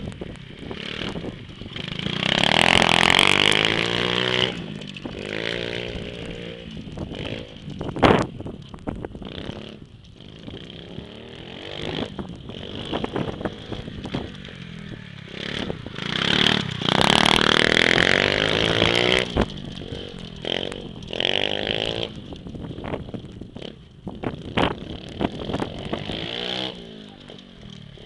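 Small pit bike engine revving up and down as the bike circles, growing loud twice as it passes close, about two seconds in and again around sixteen seconds in. A single sharp knock comes about eight seconds in.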